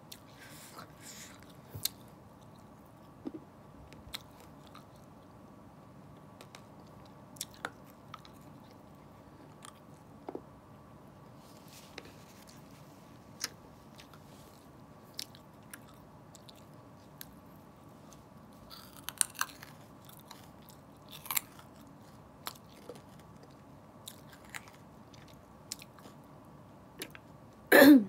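Close-up eating mouth sounds: chewing with scattered soft clicks and smacks over a faint steady hum, a few louder crunchy snaps about two-thirds of the way in, and one loud sharp crunch just before the end.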